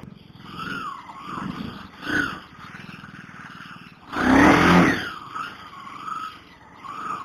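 Road traffic heard from a moving motorcycle, with pitch sweeping up and down several times. A loud passing burst lasts about a second from about four seconds in.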